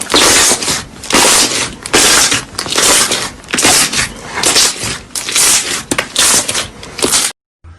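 Slime being squeezed and pressed by hand in about ten loud, rhythmic squishes, roughly one every 0.7 seconds, stopping abruptly near the end.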